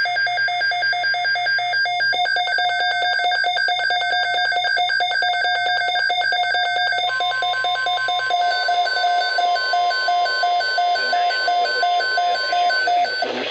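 Emergency alert tones from a weather radio: a rapidly pulsing electronic alarm beep, joined about seven seconds in by the steady NOAA Weather Radio warning tone, signalling an incoming severe thunderstorm watch.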